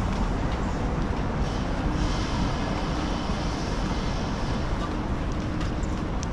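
City street ambience: a steady rumble of road traffic with faint voices of passers-by mixed in.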